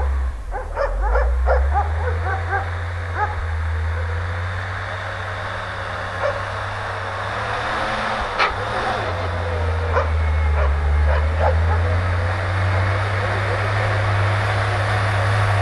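GAZ-63 army truck's six-cylinder side-valve petrol engine running as the truck drives through snow, its note dipping briefly about halfway through and growing louder toward the end. A dog barks repeatedly in the first few seconds.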